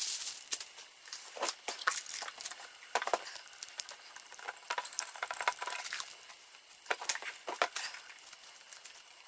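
Hands handling small hardware and plastic packaging: irregular crinkling with scattered light clicks and clinks.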